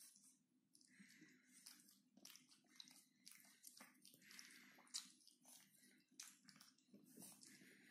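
Faint sounds of a pug puppy mouthing and biting plush toys: scattered soft clicks and rustles with a few short breathy noises, over a faint steady low hum.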